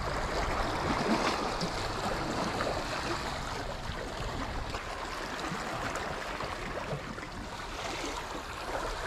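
Sea water washing and lapping against rocks at the shoreline, a steady wash with small splashes.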